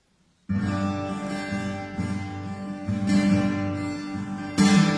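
Live acoustic music of strummed guitar chords, starting abruptly about half a second in after near silence. A stronger strummed chord comes near the end.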